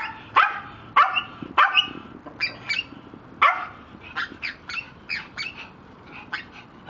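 A dog barking repeatedly in short, sharp barks, the loudest in the first half and quicker, softer ones after.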